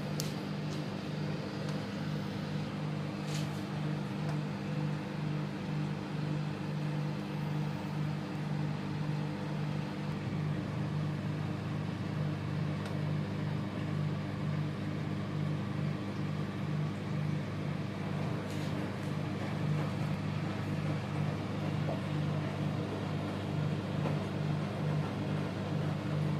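Microwave oven running: a steady low hum with a faint, even pulsing in it.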